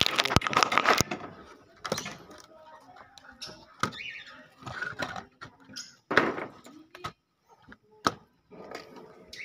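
Lovebirds chirping and squealing, with a burst of clatter in the first second and a few sharp knocks of wood being worked on the aviary frame.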